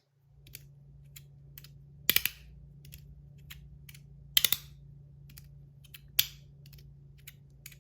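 Magnetic Damascus-wrapped fidget slider being slid and snapped: sharp metallic clicks about every two seconds, some doubled, with faint ticks between.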